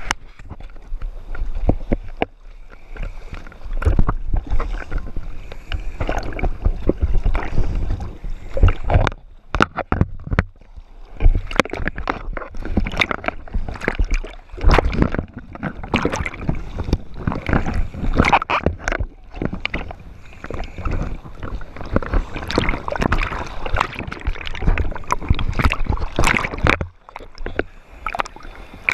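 Seawater sloshing and splashing against a GoPro's waterproof housing as it bobs at the surface in small waves, the camera dipping under and out again. Irregular crackling splashes, with two brief lulls, one about a third of the way in and one near the end.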